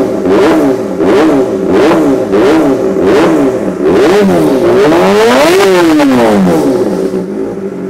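Kawasaki ZX25R's 249 cc inline-four engine revved through a freshly fitted Arrow Pro-Race titanium slip-on exhaust. It gives a string of quick throttle blips, about one every 0.7 seconds, then one longer rev that rises and falls. It settles back to idle near the end.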